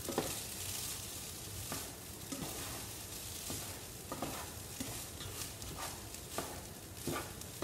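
Rice frying in olive oil in a pan, sizzling with a steady hiss, while a spatula stirs it, scraping and tapping against the pan now and then.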